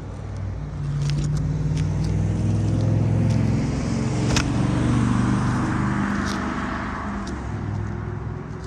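A motor vehicle's engine hum swelling and fading as it passes, with a few light clicks and taps over it.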